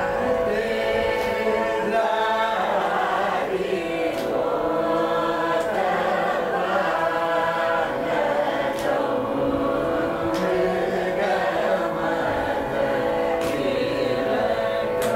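A group of voices singing a Carnatic song together in unison over a steady, unbroken drone.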